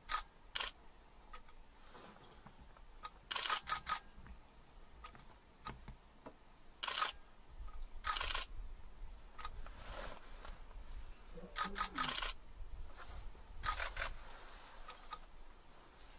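Camera shutters clicking, single shots and quick bursts of about three, every few seconds.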